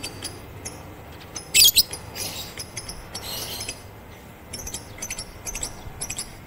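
Lovebird chirping: runs of short, high-pitched chirps and clicks, with a loud harsh burst about one and a half seconds in and a quick run of chirps near the end.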